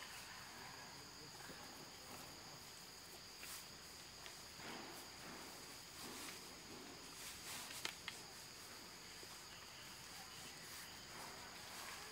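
Insects in the surrounding forest, making a steady, faint, high-pitched drone, with a couple of faint clicks about eight seconds in.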